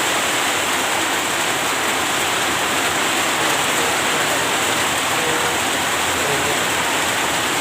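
Loud, steady rushing noise, even and unbroken, with faint voices under it.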